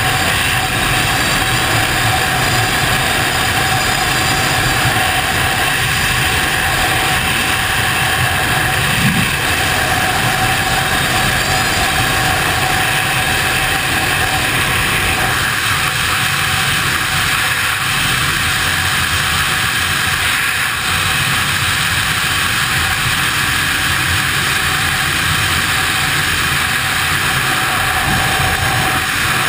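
Loud, steady freefall wind rushing over a helmet-mounted action camera's microphone during a skydive.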